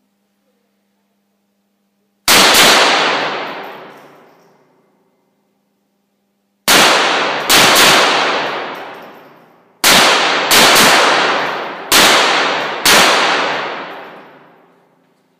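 GSG 1911 long-barrel .22 LR pistol firing seven shots: one alone, then pairs and single shots in an uneven rhythm. Each crack rings on and dies away over about two seconds in the range.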